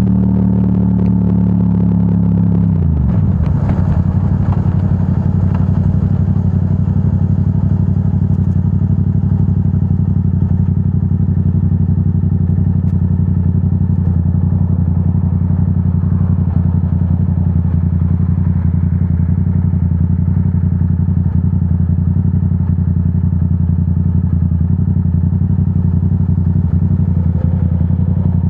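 Yamaha R7's 689 cc parallel-twin engine through a Yoshimura AT2 full exhaust. It drops off the throttle about three seconds in, the pitch falling, and then settles to a steady idle.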